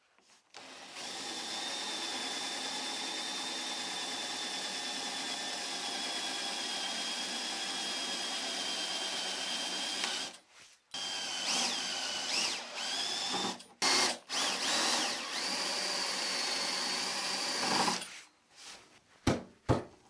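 Cordless drill with a 15 mm Forstner bit boring out the wood plug over a screw in a wooden workbench top: a steady motor whine that breaks off briefly twice in the middle. After the first break it comes back with a few quick rises and falls in pitch as the trigger is eased. It stops about two seconds before the end, leaving a few light knocks.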